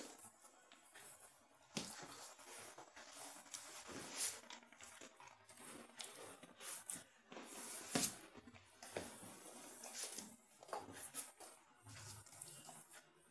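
Rottweiler mouthing and chewing a spiky rubber ball: irregular soft clicks and scrapes, a few of them louder.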